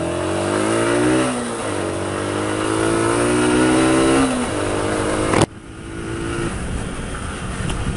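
Single-cylinder engine of a Yamaha YBR 125 motorcycle accelerating up through the gears, its pitch rising and dropping back at gear changes about a second in and near four seconds in. At about five and a half seconds the sound falls abruptly to quieter, lower running as the throttle is eased off.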